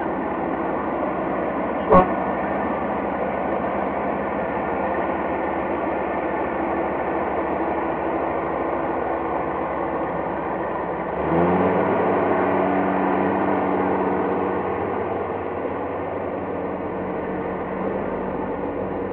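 Engine of a wheeled trenching machine running steadily as it cuts the trench, with one sharp knock about two seconds in. About eleven seconds in, the engine speeds up and gets louder under load for a few seconds, then eases back.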